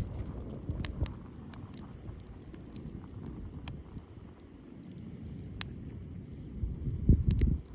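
Driftwood campfire crackling, with scattered sharp pops over a low steady rumble. A louder low rumble swells briefly about seven seconds in.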